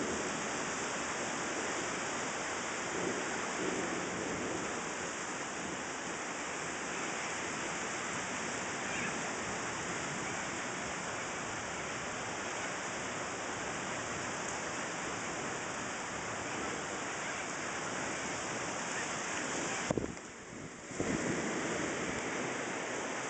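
Rain falling in a thunderstorm, a steady even hiss. Near the end it drops away for about a second, with a short knock at each edge of the gap.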